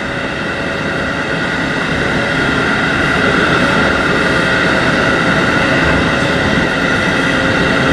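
JR Hokkaido 711 series AC electric train running on the line: a steady rumble of wheels and running gear with a layered electrical hum from the traction equipment, growing slightly louder.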